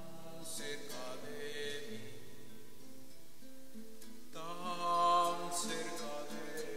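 Slow church music led by an acoustic guitar, with held notes and a louder swell about four and a half seconds in.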